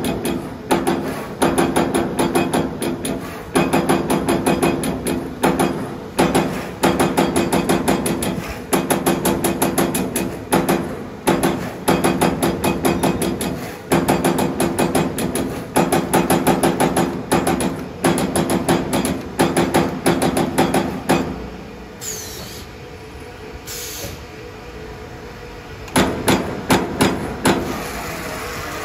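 CNC electric servo turret punch press punching sheet metal: long runs of rapid, sharp punch strokes, several a second, over a steady machine hum. The strokes stop for a few seconds after about 21 seconds, then resume near the end.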